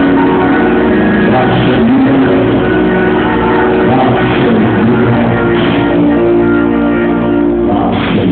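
Loud live gospel praise music from a church band: held chords over a steady beat, with a few crashes.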